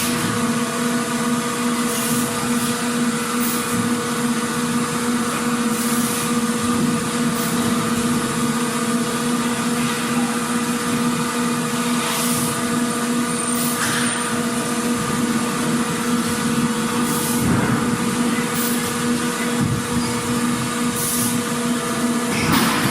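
Factory machinery running: a steady mechanical hum with a constant tone under a bed of noise. Brief sharp noises come every few seconds.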